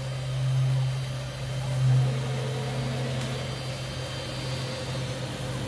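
Steady low electric hum of a mini CNC router's motors running, with no cutting heard.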